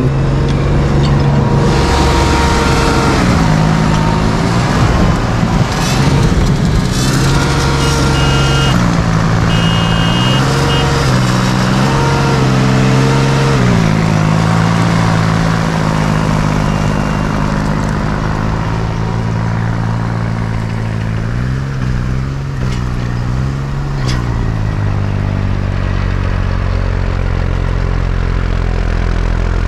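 Deutz-Fahr tractor's diesel engine working hard as the chained tractor pushes through deep snow, its engine speed rising and falling again and again with the load.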